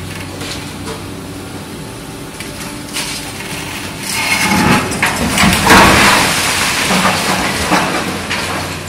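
Excavator diesel engine running steadily. About four seconds in, a large concrete wall slab breaks and collapses with a long crunching crash of concrete and rubble that lasts about four seconds and dies down near the end.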